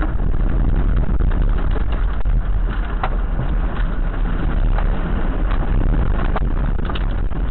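Tornado wind heard from inside a car through a dashcam microphone: a loud, steady low rush, with rain and debris striking the car in several sharp knocks.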